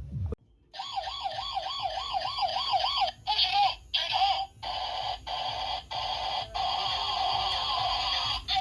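Electronic siren-like warbling tone from a battery-powered toy, wobbling up and down about three times a second. It then comes in several short bursts that start and stop abruptly, then holds more steadily before cutting off near the end.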